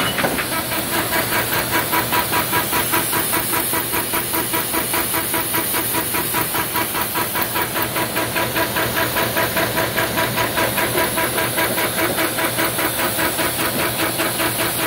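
Horizon AFC-566FG automated paper folder running in production, its feed and fold rollers beating out a fast, even rhythm of several pulses a second as sheets pass through, over a steady hiss.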